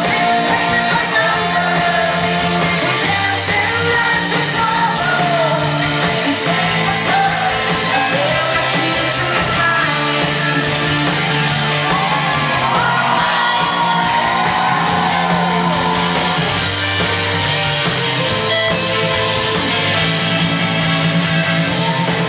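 Rock band playing live and loud: a female lead singer over drums, bass and keyboards.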